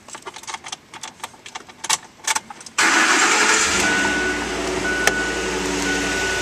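A few faint clicks and rustles, then the 2009 Ford F-150's 5.4-litre V8 starts suddenly about three seconds in and settles into a steady idle. A short high beep repeats about once a second over the idle.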